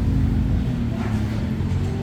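An engine running steadily with a continuous low drone.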